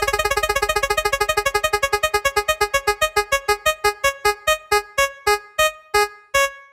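Prize-wheel spinning sound effect: short electronic ticks on one pitch, rapid at first and steadily slowing as the wheel decelerates, the last few spaced well apart near the end.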